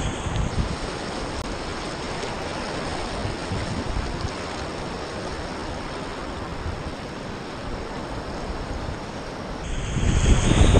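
River water rushing past a whitewater kayak on the Rio Grande running high: a steady wash of moving water. Near the end it cuts to a rapid, and the churning whitewater gets louder, with low rumble.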